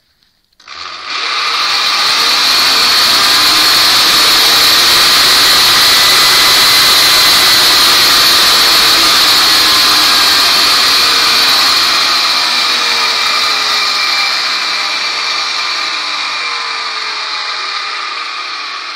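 Brushed DC motor of a homemade electric car, free-revving with no load at about 8,000–10,000 rpm. It comes up to speed quickly about half a second in, runs steady and loud, then fades gradually over the last several seconds.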